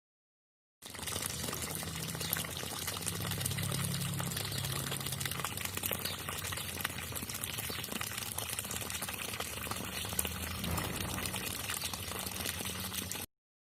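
Water running or splashing steadily, with a busy bubbling texture; it starts abruptly about a second in and cuts off sharply near the end.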